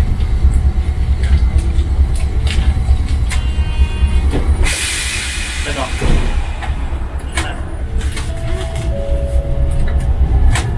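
Kagoshima City tram heard from inside the driver's cab as it runs on street track: a steady low rumble with scattered clicks and rattles from wheels and rails. A burst of hiss comes about halfway through, and a steady whine follows near the end.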